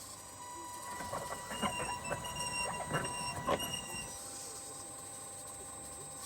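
Small electric motors and gearing of a radio-controlled model excavator whirring, with a run of clicks and ticks from about one to four seconds in, over a steady high electrical whine.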